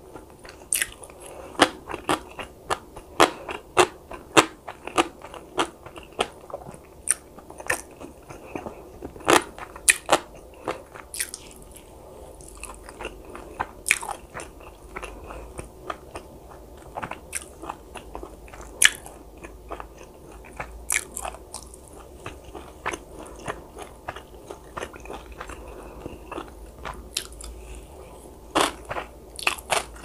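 A person chewing and biting a meal of egg-battered sausage and Korean side dishes, with many crisp crunches and clicks. The bites come thickly for the first dozen seconds, thin out, then pick up again near the end.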